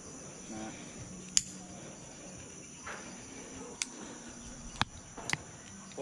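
Steady high-pitched insect drone from the surrounding forest, with a few sharp metallic clicks, the loudest about a second and a half in, as zip line harness carabiners and the trolley are clipped onto the steel cable.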